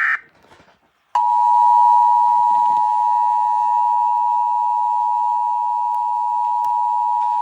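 Emergency Alert System attention signal: a steady two-tone alert tone that starts about a second in. Just before it, a short burst of warbling digital alert-header data tones cuts off.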